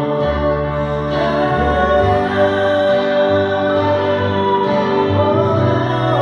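Slow worship song: long sustained chords with a voice singing over them.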